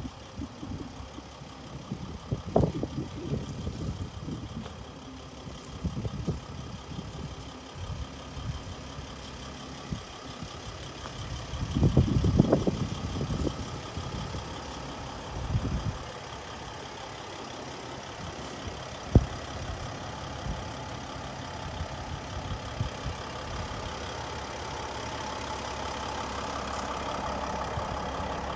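Mercedes-Benz Sprinter 519 CDI diesel engine idling steadily, with irregular low rumbles on the microphone coming and going and a single sharp click about two-thirds of the way through.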